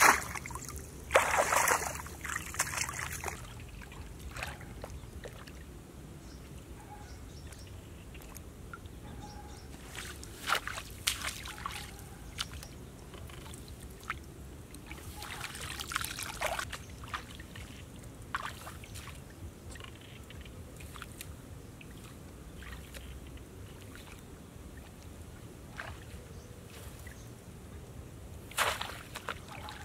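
Shallow water splashing and sloshing in short, scattered bursts with quieter stretches between, the loudest near the start and a single sharp one near the end.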